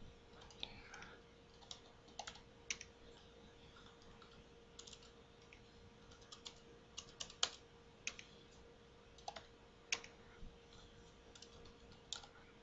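Faint, irregular keystrokes on a computer keyboard, typing numbers in short runs with pauses between, over a faint steady hum.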